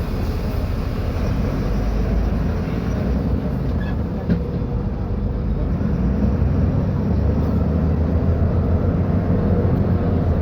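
Diesel engine of a Mercedes-Benz O500U city bus with Voith automatic transmission running with a steady low rumble; its tone shifts about seven seconds in and it gets a little louder.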